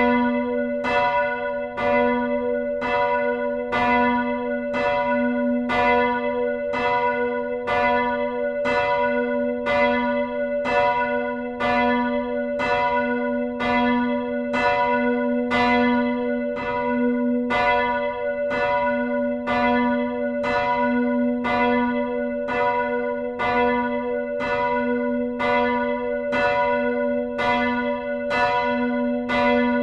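Swinging church bell ringing steadily, its clapper striking evenly a little more than once a second over a strong lingering hum.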